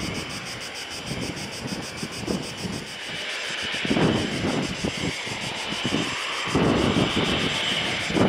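ATR 72-202 twin-turboprop airliner's engines running, with a high whine building from about three seconds in. Wind buffets the microphone in gusts.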